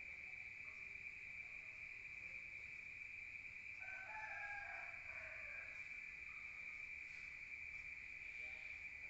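Night chorus of crickets: one steady, high, unbroken trill. About four seconds in, a rooster crows once for under two seconds.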